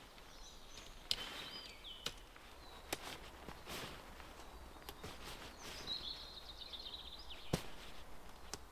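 Quiet woodland with a small bird singing short, high chirping phrases twice, and a few sharp clicks and knocks from a tent being pitched. The loudest clicks come about a second in and near the end.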